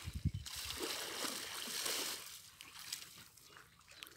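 Shallow canal water splashing and sloshing as people wade and handle a gill net, dying down after about two seconds.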